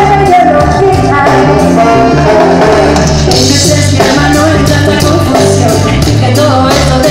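Live ska-reggae band playing loud, with saxophone and trombone over guitar, bass and drums.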